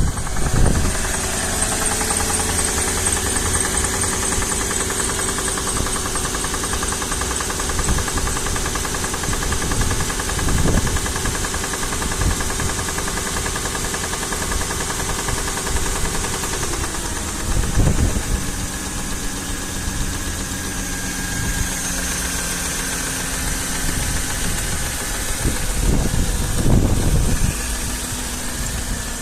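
Mercedes-Benz M113 V8 idling shortly after a cold start, with a knock that the owner cannot explain. The idle steps down slightly about 17 seconds in.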